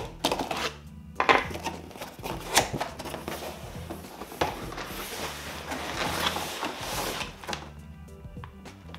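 A large cardboard shipping box being opened and handled: several sharp knocks and scrapes of the cardboard in the first few seconds, then a stretch of rustling packaging as the contents are pulled out.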